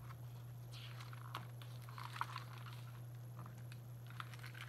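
Soft paper rustling and light clicks as a page of a large hardcover picture book is turned and the book handled, over a faint steady low hum.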